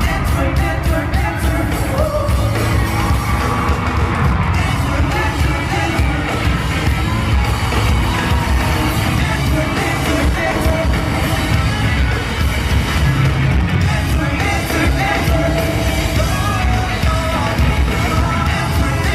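Live pop-punk band playing loud through arena speakers, with singing and a crowd yelling and singing along in a large hall.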